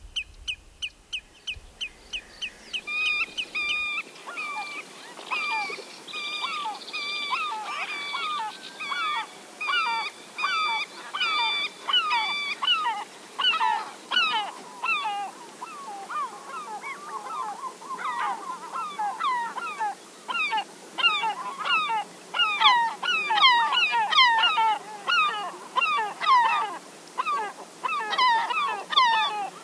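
A flock of birds calling: a regular series of short repeated calls at first, then more and more overlapping short calls building into a dense chorus toward the end.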